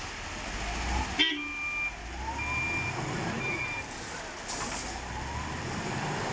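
Heavy diesel machinery running with a steady low rumble, with a sharp click about a second in followed by three short high-pitched beeps, the last one shortest.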